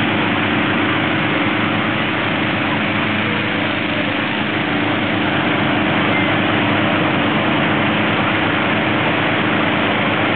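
Engine-driven inflator fans running steadily, blowing air into hot air balloon envelopes: a loud, even engine hum and rush of air.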